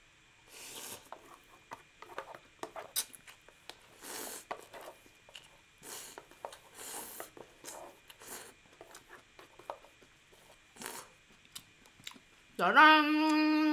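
Eating noise of spicy instant yakisoba noodles: short slurps and chewing, with chopsticks clicking and scraping against the plastic tray as the last of the noodles are scooped out. Near the end, a drawn-out voiced sound from the eater.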